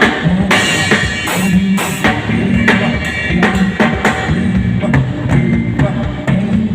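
Drum kit played over a music track with a bass line, with bass drum and snare hits throughout.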